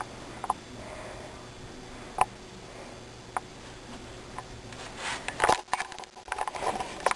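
Quiet room with a few isolated sharp clicks, then from about five seconds in a run of rustling, scraping and knocking as the handheld camera is moved and handled.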